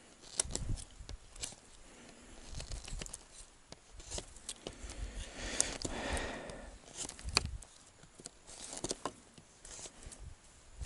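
Irregular sharp clicks and snaps of willow pole ends being cut off and handled, with a brief rustle of branches about halfway through.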